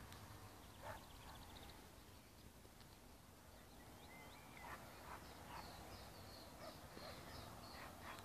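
Faint open-air ambience with scattered distant bird calls: short high chirps and quick trills, and one sliding whistle about halfway through, over a low steady background rumble.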